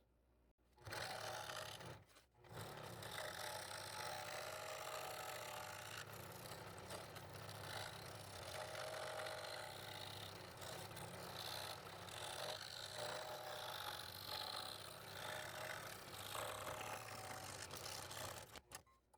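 Scroll saw running and cutting wood, a steady mechanical buzz with a scraping edge. It drops out briefly near the start, about two seconds in, and near the end.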